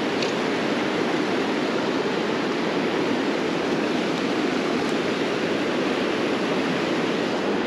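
A fast river running high after rain, rushing over rocks and around a boulder in whitewater rapids: a steady, even rush of water.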